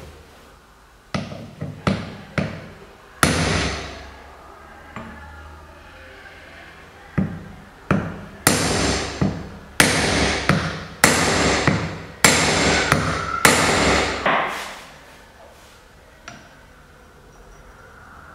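Hammer blows on a steel drift set on a BMW E39 rear wheel hub and bearing, each metal strike ringing briefly. A few scattered blows come first, then a fast run of about ten heavy blows about halfway through, and a single light knock near the end.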